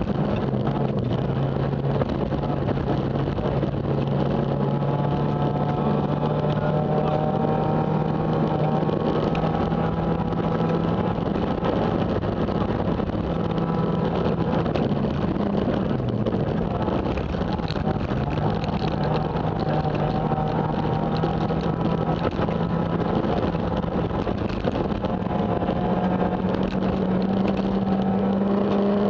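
Renault Mégane kit car's rally engine heard from inside the cabin at speed on gravel, held at high and fairly steady revs that creep upward, with two brief lifts about halfway through, over steady road and tyre noise.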